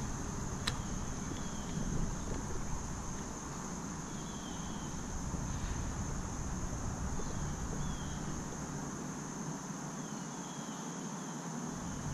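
Insect chorus, a steady high-pitched buzz from crickets, with a faint short chirp every few seconds and a low rumble of wind on the microphone. A single click sounds about a second in.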